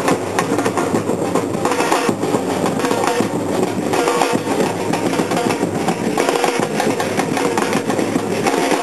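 Afro-Brazilian street percussion band drumming together: many large bass drums and smaller drums beaten in a dense, steady, driving rhythm.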